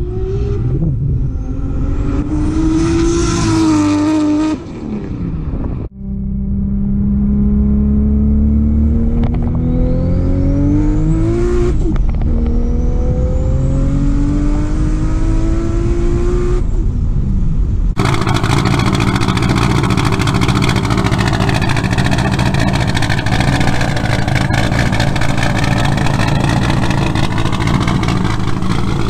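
Mk3 Toyota Supra's turbocharged 7M-GTE straight-six through a muffler-deleted exhaust. First comes a hard acceleration with the engine pitch climbing, then two more rising full-throttle pulls separated by a gear change. After a cut about eighteen seconds in, the engine idles with a wavering, uneven note.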